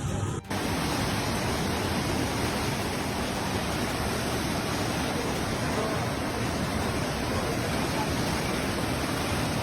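Floodwater rushing in a torrent: a steady, dense rushing noise that starts abruptly about half a second in.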